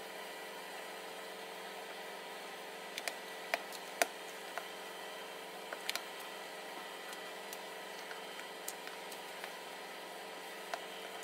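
Silicone spatula stirring thick chocolate cake batter in a mixing bowl, with scattered light clicks of the spatula against the bowl, most of them in the middle, over a steady background hiss and hum.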